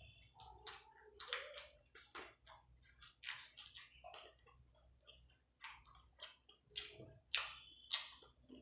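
Close-up wet eating sounds of rice and curry eaten by hand: irregular lip smacks and squishy chewing clicks, with fingers squishing rice and gravy on the plate. The loudest smacks come about a second in, around three seconds in and near the end.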